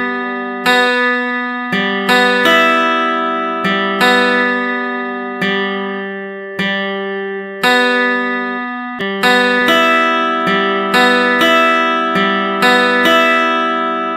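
Background music: plucked guitar chords ringing out, a new strum or pluck about every second.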